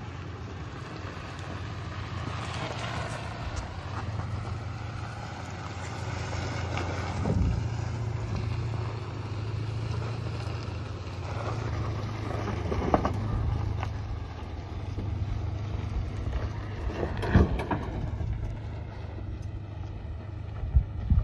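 Toyota Tacoma pickup's engine running steadily as the truck drives past and on over a sandy dirt trail. A few short sharp knocks cut in, the loudest about three-quarters of the way through.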